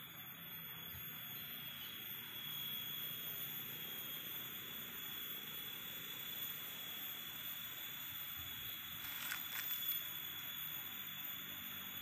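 Field ambience of an insect chorus: a continuous high-pitched tone over a steady hiss, with a brief scratchy noise about nine seconds in.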